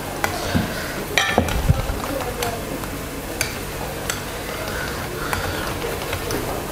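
Wire whisk beating a thin batter in a ceramic bowl: a steady wet swishing, with the wires clicking against the side of the bowl about once a second and a few louder knocks near the start.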